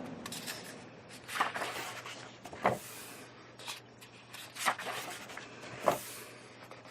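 Pages of a paper colouring magazine being turned by hand: about four page turns, each a short rustling swish ending in a soft slap.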